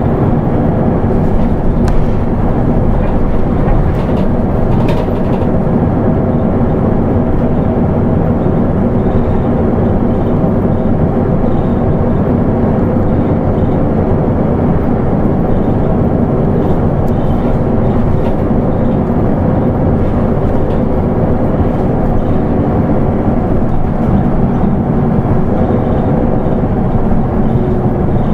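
Steady diesel engine drone and running noise of a Nissan Diesel Space Runner RA manual-transmission city bus, heard from inside the bus.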